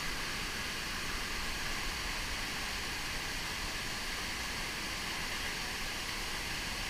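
Waterfalls pouring into a plunge pool: a steady, even rushing hiss of falling water.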